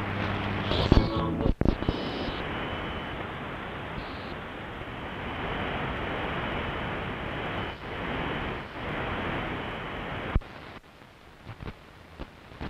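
Shortwave static hiss from an Icom IC-R70 communications receiver tuned between stations, with brief whistles and crackles in the first two seconds. About ten seconds in a sharp click sounds and the hiss drops much quieter.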